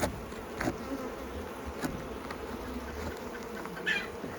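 Honeybees buzzing steadily around an open hive, with a few sharp clicks and a short scratchy burst from scraping wax off the hive.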